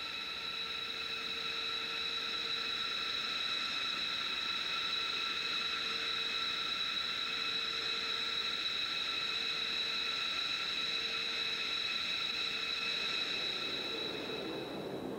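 Boeing 777 jet engines, the Pratt & Whitney PW4084 of a United Airlines 777, running with a steady high whine over a hiss as the airliner flies past. The whine fades out near the end.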